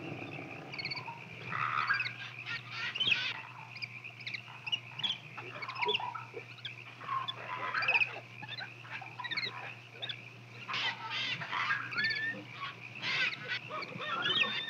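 Many short, high animal squeaks and chirps overlapping, with louder flurries about two, eleven and thirteen seconds in, over a steady low hum.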